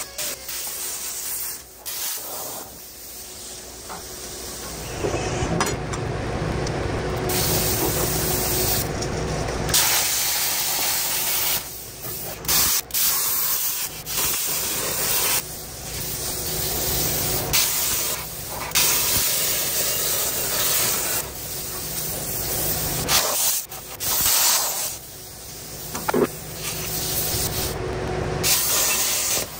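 Plasma cutter hissing as it cuts through steel, in stretches that stop and start again every few seconds.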